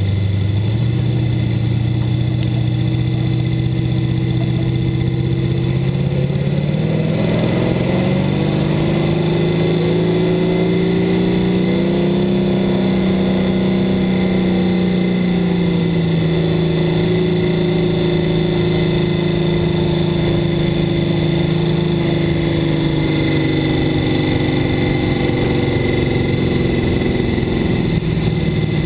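Sportmod dirt-track race car's V8 engine, heard from inside the cockpit. Its pitch climbs over the first dozen seconds, holds, then eases slowly lower toward the end.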